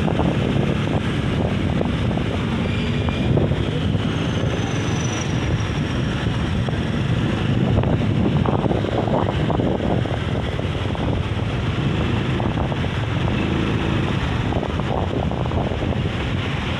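Strong onshore wind buffeting the microphone: a loud, steady, rough low rumble.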